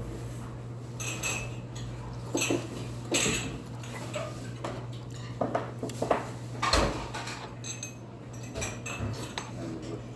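Metal spoon clinking and scraping against a black stone hot-pot bowl of soup as it is stirred and scooped: a string of short, irregular clinks, the loudest about two-thirds of the way through, over a steady low hum.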